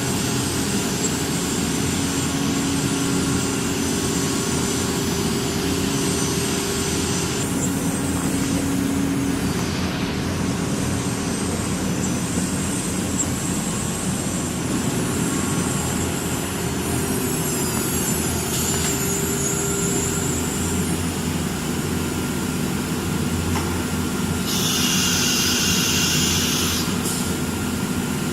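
CNC nesting router running: a steady machine drone with hum tones that come and go, and a brighter hiss lasting a couple of seconds near the end.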